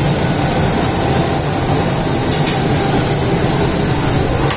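Steady loud roar of the burner under a large pot of rice water at a full boil.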